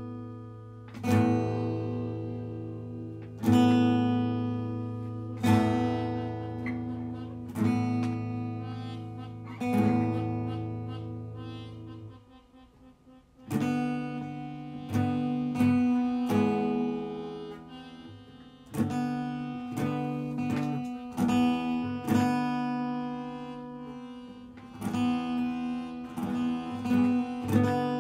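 Buzzy four-string acoustic guitar with rusted strings, chords struck and left to ring out about every two seconds. After a brief pause about twelve seconds in, it plays a quicker run of chords.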